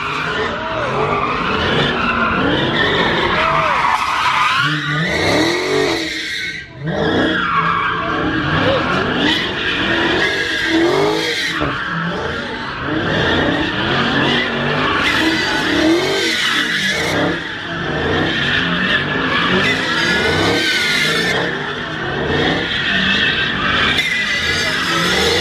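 Dodge Charger's V8 revving up and down again and again while the car spins donuts, its rear tyres squealing continuously. The engine and tyres let up briefly about seven seconds in.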